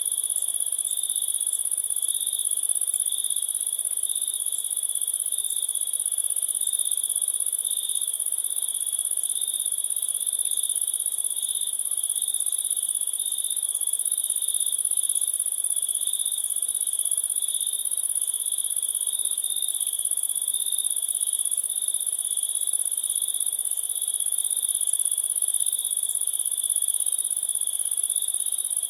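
Crickets chirping in a steady chorus: a continuous very high trill with a second, lower trill beneath it.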